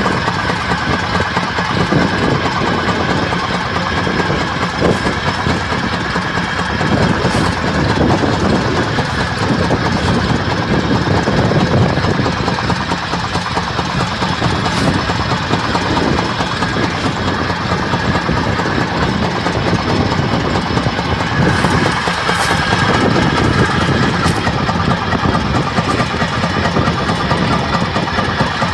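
Rice combine harvester running steadily at work in the field.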